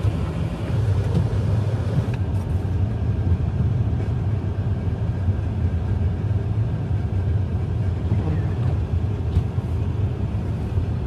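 Steady low drone of a car heard from inside the cabin: engine and road noise while the car is under way or held in traffic.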